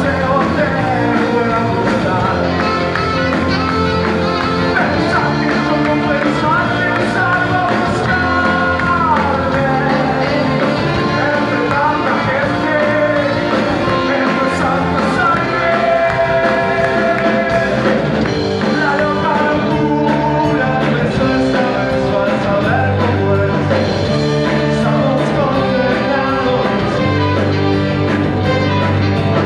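Live rock band playing: electric guitars, drums and saxophone, with a voice singing over them.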